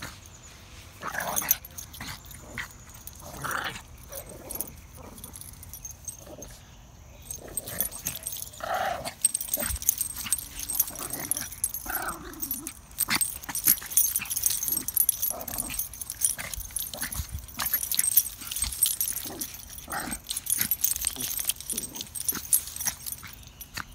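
Two small dogs tussling in play-fight, giving short irregular bursts of dog vocalizing over scuffling and rustling. The scuffle gets busier and louder about seven seconds in.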